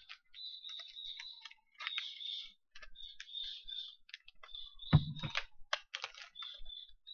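Hands rustling and crinkling packaging while handling small items, with scattered light clicks and a single heavier thump about five seconds in.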